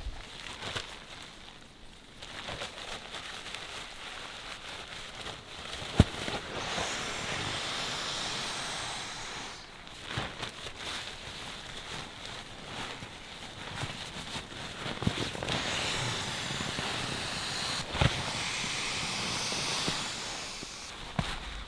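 An inflatable sleeping pad being filled with a nylon pump sack: two long stretches of rushing air and nylon rustling, with a few sharp clicks.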